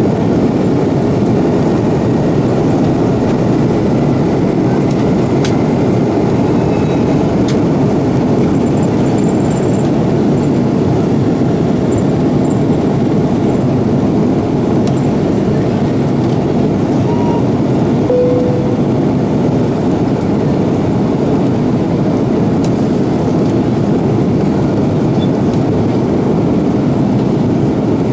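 Loud, steady cabin noise of an Airbus A330-200 from a window seat behind the wing: its Rolls-Royce Trent 700 engines running at takeoff power through the takeoff roll, liftoff and initial climb.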